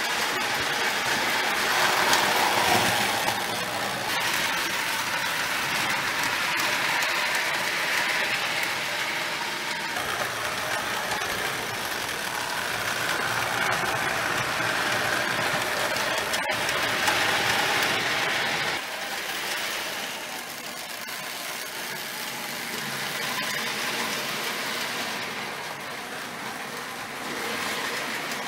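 Marx O-27 tinplate toy train, a custom Army-painted No. 666 locomotive pulling cars, running on three-rail track: a steady mechanical running rattle. It is louder while the train passes close and drops off about two-thirds of the way through.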